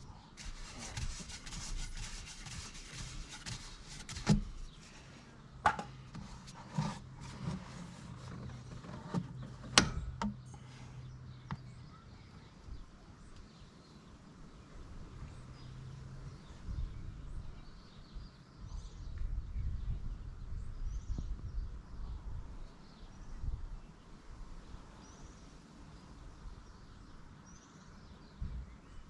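Handling noises from work on the engine: rubbing at first, then a few sharp clicks and knocks, the loudest about ten seconds in. Behind them is a quiet outdoor background with birds chirping faintly.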